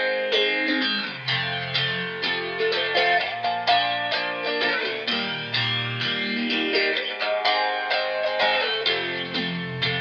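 Semi-hollow electric guitar played through effects pedals, a continuous run of picked notes with a processed psychedelic tone.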